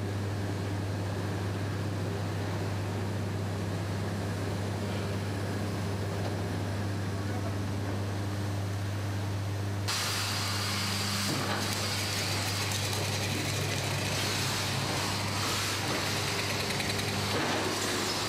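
Steady industrial drone of machinery in an aluminium smelter's furnace hall, a low hum under a wash of noise. About ten seconds in, the noise turns abruptly brighter and hissier.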